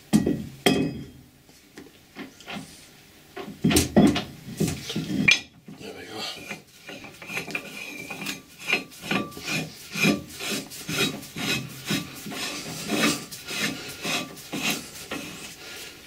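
Heavy cast-iron faceplate being screwed by hand onto a Colchester lathe's threaded spindle nose, its metal threads scraping and grating. A few heavy clunks come in the first few seconds, then a regular run of scrapes about twice a second as it is spun on.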